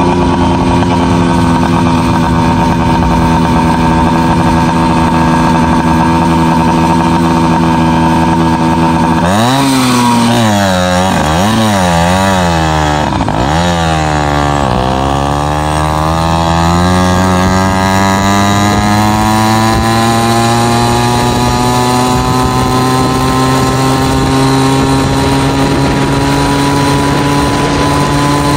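FM-80 two-stroke race engine with a small expansion-chamber exhaust on a motorized bicycle, running steadily. About a third of the way in its pitch drops and wavers up and down a few times. It then rises in one long, slow climb at wide-open throttle as the bike builds toward top speed.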